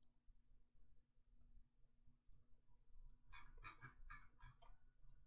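Faint computer mouse clicks in near silence: a few single clicks spaced about a second apart, and a quick run of clicks about three seconds in.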